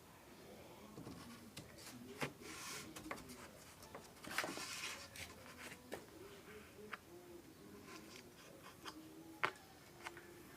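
Pieces of wood being handled and fitted together for a spline joint: scattered light taps and clicks with stretches of scraping, and a sharper knock near the end.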